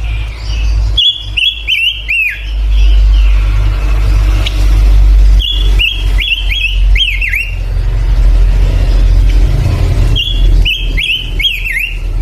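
Male songbird singing three short phrases, each a quick run of sharp down-slurred whistled notes, a few seconds apart, over a steady low rumble.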